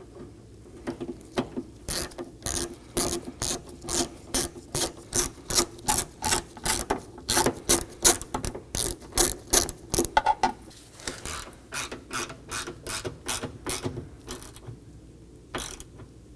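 Hand ratchet turning a T30 Torx bit to snug down the door handle's lock-cylinder screw. It gives an even run of pawl clicks, about two to three a second, that grow fainter later on and stop shortly before the end.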